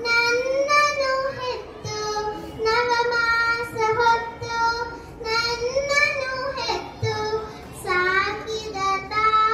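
A young girl singing solo into a microphone, a melody of long held notes with slides between them.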